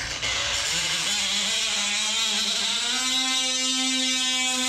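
Cordless DeWalt oscillating multi-tool running and cutting into the bottom of a wooden door casing, undercutting it so that laminate flooring fits beneath. It is a steady buzzing whine that starts at once, with a slight rise in pitch about a second in.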